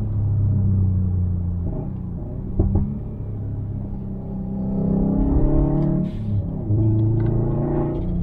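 Tuned Subaru WRX STi's turbocharged 2.5-litre EJ257 boxer four under load on a mountain road, its note holding, falling off as the throttle lifts, then climbing again with a shift. A couple of sharp exhaust pops come about two and a half seconds in.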